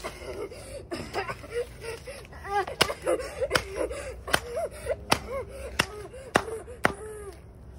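A small hammer striking paper workbook pages lying on brick pavers: a string of sharp blows, about one every three-quarters of a second from roughly a third of the way in.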